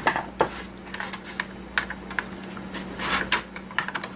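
Irregular plastic clicks and taps from an old electronics casing being handled and turned over while searching it for hidden screws, over a faint steady hum.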